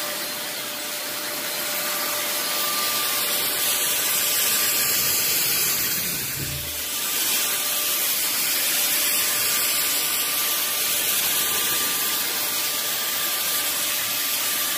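Electric cold (ULV) fogger running, its blower giving a steady hiss of insecticide mist over a constant whine from the motor. The rush dips briefly about six and a half seconds in.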